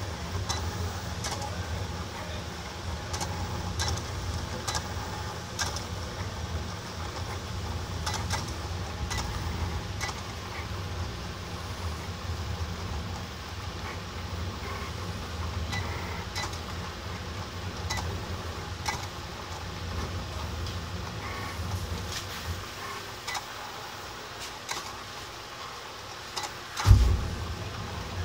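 Desktop cutting plotter converted to a pen plotter, its motors running steadily as the carriage draws PCB tracks with a marker, with many short, irregular clicks. A loud thump near the end.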